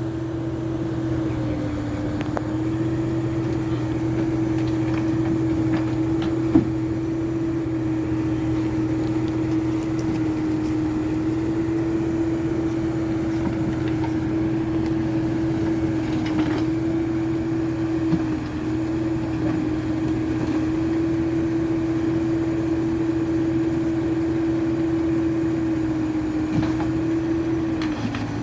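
Excavator's diesel engine and hydraulics running steadily with a held tone. The pitch sags briefly a few times as the hydraulics take load.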